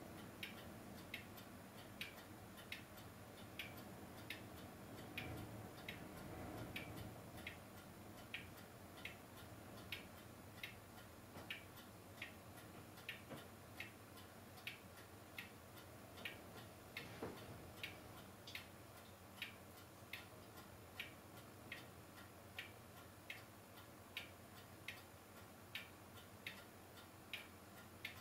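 Faint, evenly spaced ticking, a little more than one tick a second, over a low steady hiss and hum.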